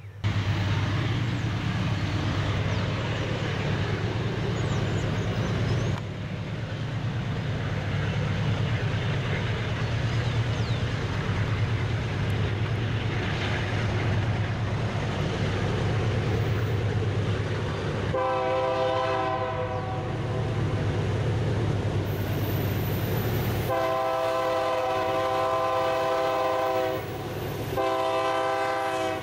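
Diesel freight locomotives approaching with a steady low engine rumble, then sounding their air horn: a chord of several pitches, blown for about two seconds near the middle, then a longer blast and a further blast running on at the end.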